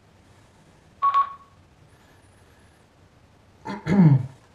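Baofeng UV-5R handheld transceiver switched on at its top knob, giving one short electronic beep about a second in. Near the end there is a brief voice-like sound that falls in pitch.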